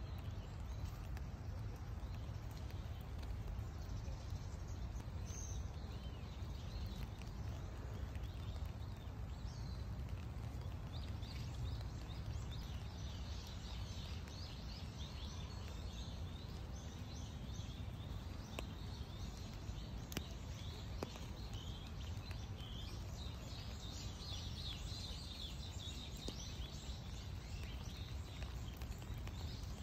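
Birds chirping and singing over a steady low rumble of outdoor background noise. The chirps are sparse at first, grow busier after about ten seconds, and are thickest near the end.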